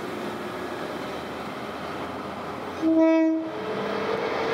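CSR-class diesel locomotive at the head of a passenger train sounds one short horn blast about three seconds in. Before it there is a steady rumble of the approaching train, and after it the engine and wheel noise grows louder as the locomotive draws close.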